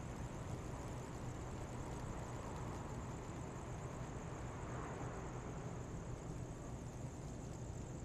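Quiet city street ambience: a steady distant traffic hum with a constant high hiss, and one vehicle passing faintly about five seconds in.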